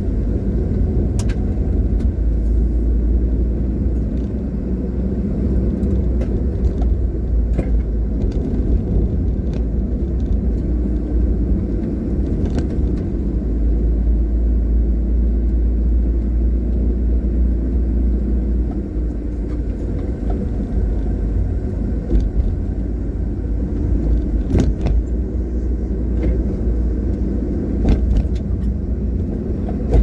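Steady low rumble of a vehicle driving along a rough rural road, engine and road noise, with a few short knocks scattered through it.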